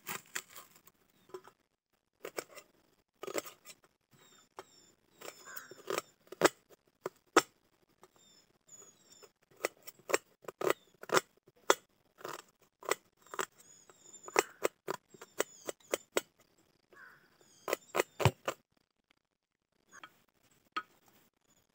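Kitchen knife chopping onions on a steel plate: many sharp, irregular taps as the blade strikes the metal, with a short lull near the end.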